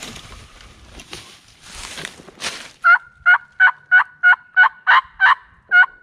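Footsteps crunching through dry leaves and brush, then, about three seconds in, a series of nine loud, evenly spaced turkey yelps, about three a second, each note breaking from high to low: a hunter yelping on a mouth call.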